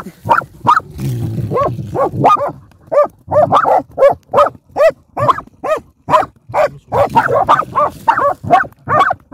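Hunting dog barking fast and repeatedly, about three barks a second, while baying a porcupine in its burrow. A low growl sits under the barks about a second in.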